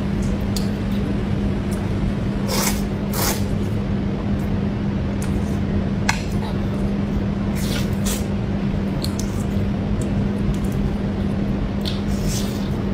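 A person eating close to the microphone: about six short mouth noises of chewing and biting, over a steady background hum and hiss.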